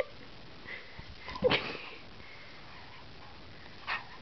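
Schnauzer sniffing sharply through its nose once, about one and a half seconds in, with a smaller short sniff near the end.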